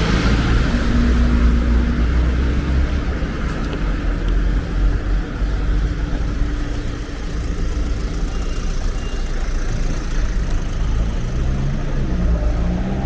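City street traffic: cars driving past close by, with a steady low rumble of engines and tyres.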